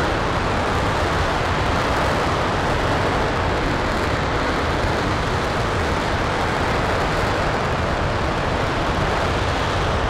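RS-25 liquid hydrogen and liquid oxygen rocket engine firing during a hot-fire test on its test stand. It makes a loud, steady, unbroken rushing noise, heard from a distance.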